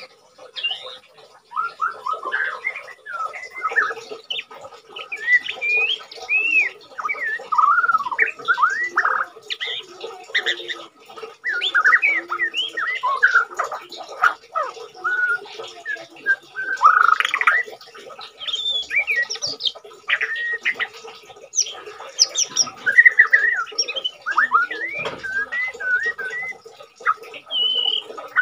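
White-rumped shama singing: a long run of varied phrases of quick whistled notes that glide up and down, with short gaps between phrases. The bird is in molt yet still singing freely.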